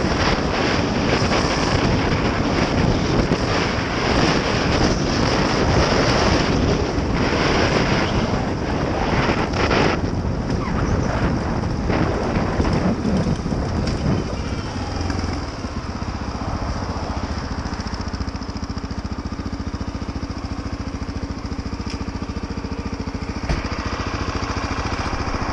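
Honda XR650L single-cylinder four-stroke motorcycle engine under way on a dirt road, with heavy wind noise on the microphone. About ten seconds in it slows down, and from about fifteen seconds in it runs at a steady idle, with one short knock near the end.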